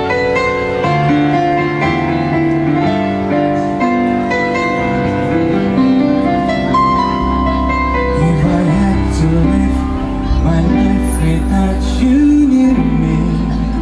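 Live band playing a slow song, opening on held chords. A bass comes in about halfway, and a man starts singing in the second half.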